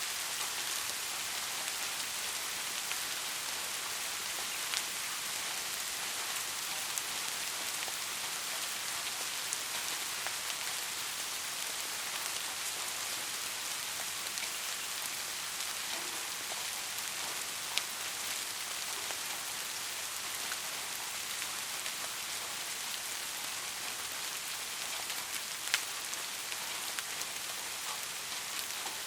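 Steady rain falling, a dense even hiss with a few louder single drop ticks scattered through it.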